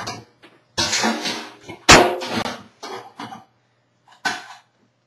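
Rice cooker lid set down and closed with one sharp clack about two seconds in, among a few short rustling, breathy bursts of handling noise.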